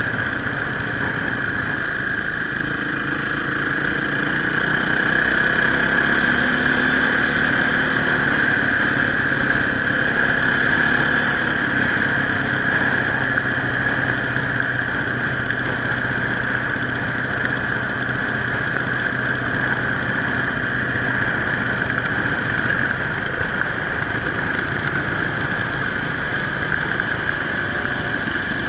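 Enduro motorcycle engine running at fairly steady revs, the pitch drifting only a little, under a constant hiss.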